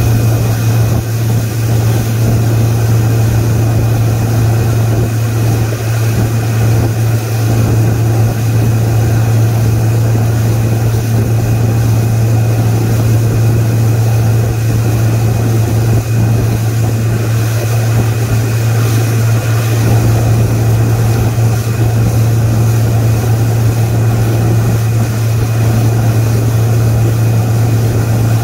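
Motorboat engine running steadily at towing speed, a constant low drone, over the rush of water churning in the wake.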